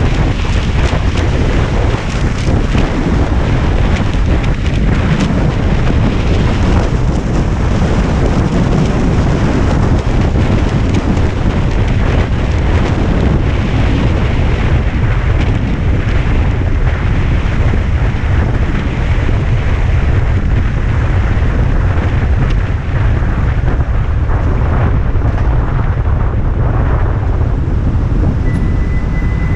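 Heavy, steady wind noise buffeting the action camera's microphone on a moving Suzuki V-Strom motorcycle, with the bike's engine and road rumble underneath.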